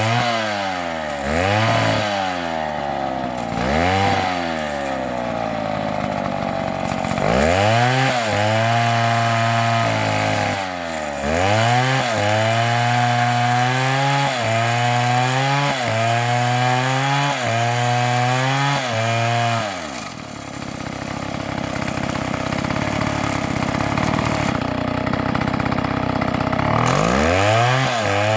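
Two-stroke chainsaw engine blipped up and down a few times, then held at high revs with small regular dips. About two-thirds of the way through the engine note drops into a rough, noisy stretch, then revs up again near the end.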